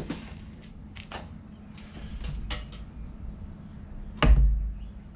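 Scattered clicks and knocks of metal engine parts and tools being handled during an ATV engine teardown, with a heavier thump about four seconds in.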